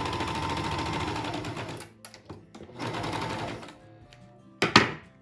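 Serger (overlock sewing machine) running fast through thin rayon fabric with a steady rattling hum. It stops about two seconds in, then runs again in one short burst about a second later. A single sharp knock comes near the end.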